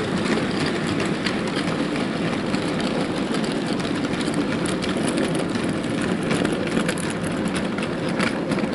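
Model railway train rolling past: a steady rumble of a Heljan Class 14 model diesel and a heavy rake of coal-loaded wagons running on the track, with scattered light clicks from the wheels.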